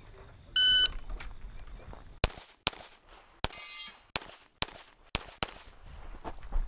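A competition shot timer gives one short electronic beep. About a second and a half later a pistol fires a string of about seven shots at uneven spacing, and one hit sets a steel target ringing briefly.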